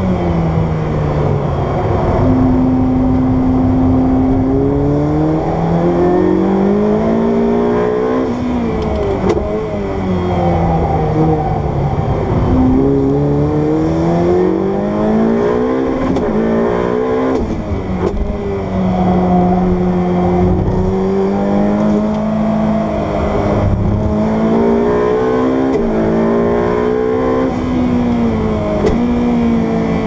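Ferrari 488 Pista's twin-turbocharged V8, heard from inside the cabin while lapping a race track. It climbs in pitch through the gears with quick upshifts that drop the note, then falls away as the car slows for corners, over and over.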